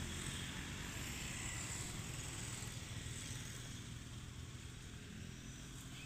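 Low, steady outdoor rumble that slowly fades, with no distinct events.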